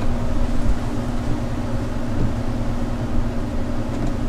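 Steady low mechanical hum with a constant pitched tone and a rumble beneath it.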